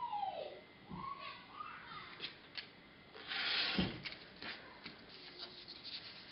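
Rotary cutter slicing through foundation paper and fabric along a quilting ruler on a cutting mat, with one longer cut about three seconds in ending in a low thump. Light taps and clicks of the ruler and cutter being set down and moved are scattered throughout.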